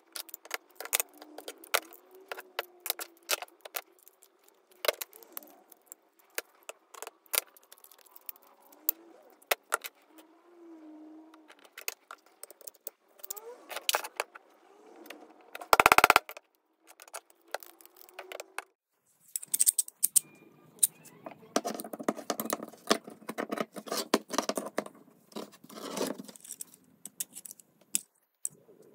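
Pliers clicking and scraping against rusty steel parts of an old dart rifle: a steady scatter of small metal clinks, one much louder knock about halfway, and a denser stretch of scraping about two-thirds of the way in.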